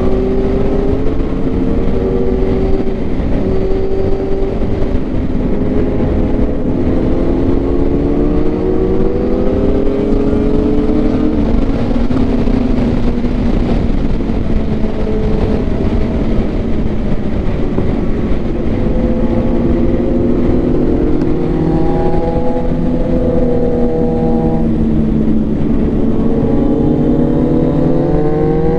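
Motorcycle engine heard while riding. Its pitch climbs through each gear and drops back at every shift, several times over, and it revs up again near the end, over a steady low rush.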